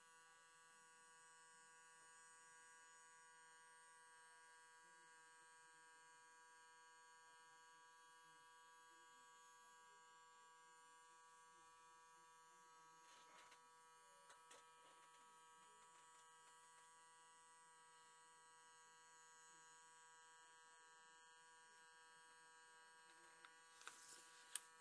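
Faint, steady electric whine of a small turntable motor turning the stones, with a few light clicks in the second half.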